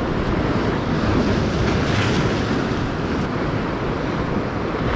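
Ocean waves breaking and washing over jetty boulders, with wind buffeting the microphone; one wave surges louder about two seconds in.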